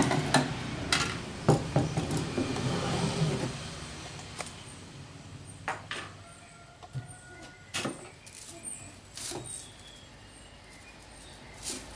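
Scattered knocks and clinks of metal machine parts being handled inside a wooden shipping crate, with a rustling haze in the first few seconds that then dies down.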